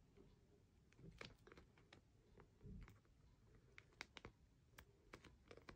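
Faint clicks and crackles of a clear acrylic stamp being handled and pulled apart, with a soft low thump about three seconds in.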